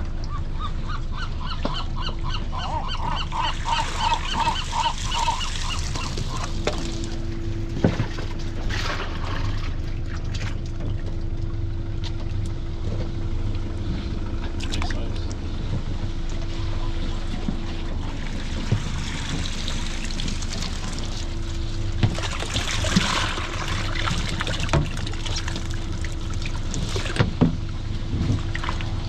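A gull calling in a rapid series of short, laughing notes over the first few seconds. Under it run a steady hum and the rush of aerated water in a bait tank, with a louder wash of water about two-thirds of the way through.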